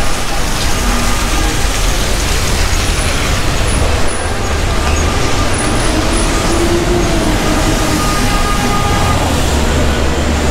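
Steady hiss of heavy rain on wet city streets mixed with traffic, with a low rumble of vehicle engines underneath.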